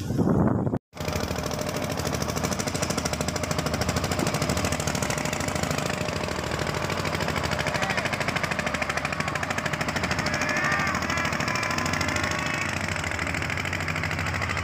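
Engine of a small wooden boat running steadily under way, with a fast, even knocking beat. It cuts in about a second in, after a short silence.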